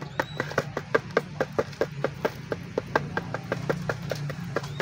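A bird's beak pecking grains of rice off a hard plastic tray: quick, irregular taps, about five or six a second.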